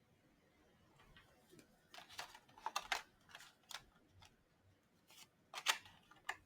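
Trading cards being handled: a run of short, crisp flicks and rustles of card stock as cards are slid and turned, bunched in two spells.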